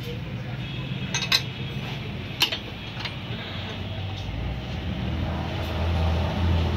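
A few sharp metal clicks and clinks from diesel injector parts being handled and fitted together, over a steady low workshop rumble that grows louder near the end.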